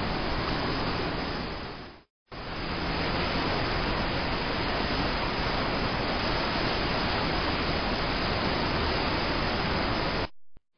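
Six Mile Creek in flood, rushing fast and high through its concrete-walled channel: a steady, even noise of churning floodwater. It fades out and breaks off briefly about two seconds in, comes back, and cuts off again near the end.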